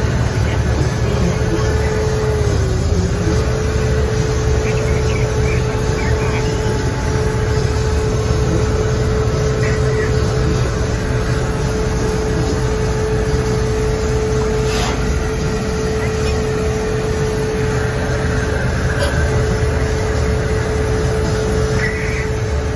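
Airport crash fire truck heard from inside its cab, running with a loud steady drone while it drives and pumps water at the same time. A steady whine runs over the drone, dipping briefly about two and a half seconds in.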